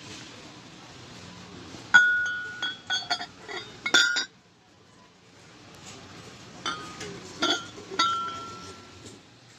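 Glazed ceramic mugs clinking against each other as they are handled and set down: a quick run of ringing clinks about two seconds in, then a second run a few seconds later.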